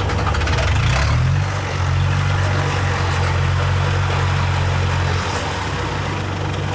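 Engine of a small tracked rice carrier running while it crawls through deep paddy mud. The engine note rises about a second in, holds steady, then shifts again about five seconds in.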